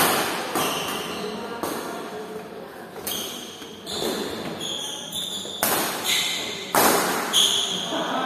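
Badminton rackets striking the shuttlecock in a doubles rally: about eight sharp hits, roughly one a second, each ringing briefly in the hall, with short high squeaks of shoes on the court floor between them.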